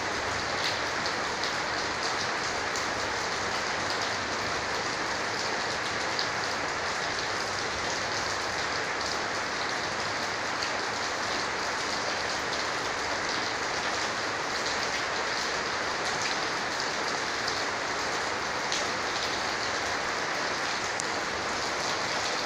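Heavy rain pouring down steadily: an even rushing hiss with many small drop ticks, never letting up.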